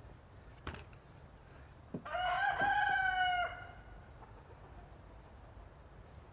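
A rooster crowing once: a single pitched call of about a second and a half, starting about two seconds in. A couple of short knocks come before it.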